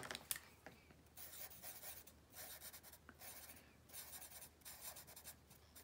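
Sharpie marker drawing on paper: faint, short strokes of the felt tip as a small flower is drawn.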